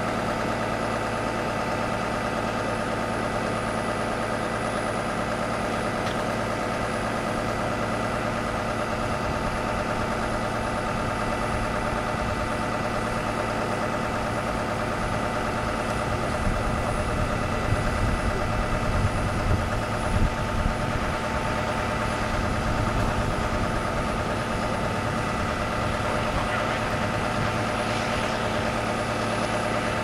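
Orion VII city bus idling steadily while standing still, with a few louder low rumbles about halfway through.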